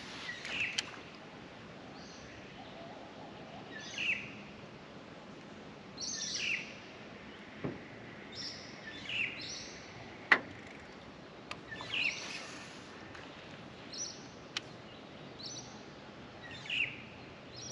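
Birds calling again and again, each call a short note falling in pitch, every second or two. A few sharp clicks cut through, the loudest about ten seconds in.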